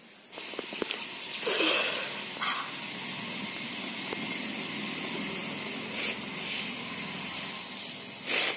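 A steady outdoor hiss starts abruptly just after the beginning and carries a few brief louder noises: one about one and a half seconds in, short ones later, and a sharp loud one just before the end.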